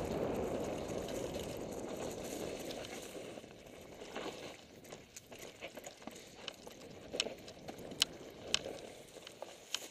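Mountain bike riding a forest trail: wind and tyre rumble on the bike-mounted camera that fades after about four seconds, then scattered sharp clicks and rattles from the bike on the rough trail.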